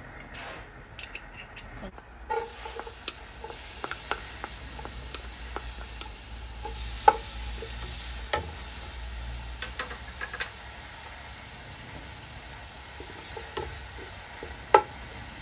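Hot cooking oil in a pot sizzling with a steady hiss that sets in about two seconds in, as chopped ginger is dropped in by hand to sauté. Scattered sharp clicks of ingredients and hand against the pot come through, two of them loud.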